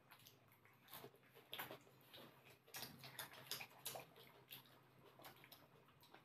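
Faint close-up eating sounds: soft, irregular clicks of chewing and mouth sounds as rice and fish curry are eaten by hand, with fingers working the rice on the plate.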